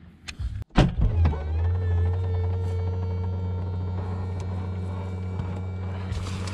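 A sharp knock, then a steady low mechanical hum with a fainter higher tone, which wavers briefly in pitch as it starts and then holds level.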